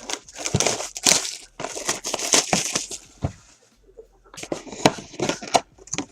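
Plastic wrapping crinkling and tearing as a box of trading cards is opened by hand, in two spells with a short pause about three and a half seconds in.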